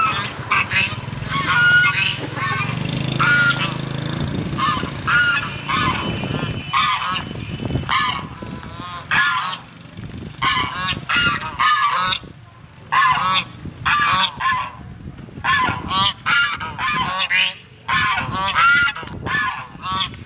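Several geese honking, short harsh calls overlapping in quick clusters, with a brief lull about eight seconds in. A low hum runs under the first few seconds.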